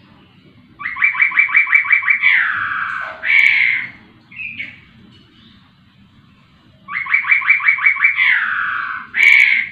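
Caged poksay rowo, a laughingthrush, singing the same phrase twice. Each phrase is a fast run of about nine repeated notes, then a falling slurred note and a loud harsh note. A short single note falls between the two phrases.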